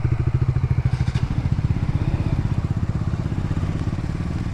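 Motorcycle engine running at low speed, with an even, rapid pulse from its firing strokes.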